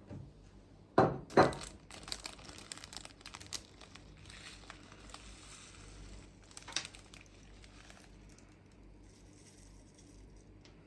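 Kitchenware being handled on a work surface: two sharp knocks about a second in, then light clinks and rustling.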